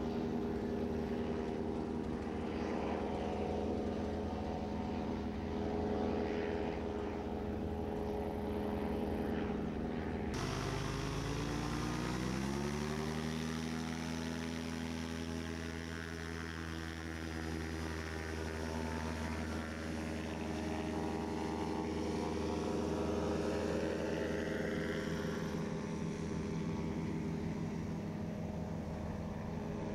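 Carrera 180 floatplane's engine and propeller running at high power during a takeoff run on the water. About ten seconds in the sound cuts abruptly, then the engine note rises over a couple of seconds as the throttle comes up and holds steady and high as the plane lifts off and climbs.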